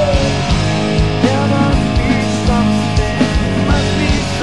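Hard rock band playing: electric guitars, bass and a steady drum beat, with a pitched lead line that bends up and down.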